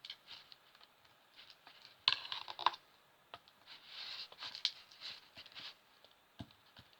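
Homemade glue slime being stretched and squished by hand, with sticky crackles clustered about two seconds in and softer wet squelching around four to five seconds. The slime is still stringy, a sign that it needs more Perwoll activator.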